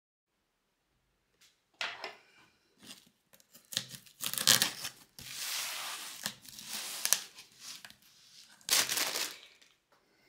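Plastic packaging and a cardboard box rustling and crinkling as they are opened by hand, in irregular bursts with the loudest around four and a half and nine seconds in.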